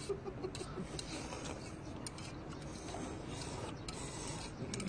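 Faint noodle slurping as people eat milmyeon, with scattered small clicks of metal chopsticks against stainless-steel bowls.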